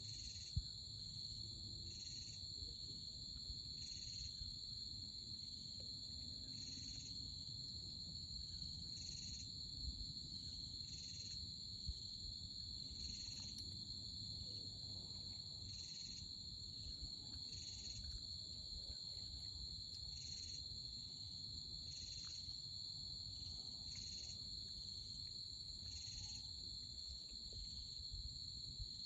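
Night insects: a steady high-pitched drone with a second insect chirping in a regular pulse about once a second, over a low rumble, with a few faint clicks.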